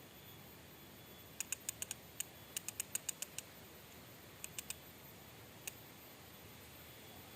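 Sharp, high-pitched clicks in quick irregular runs, about a dozen in the first two seconds and a few more later, over faint steady hiss.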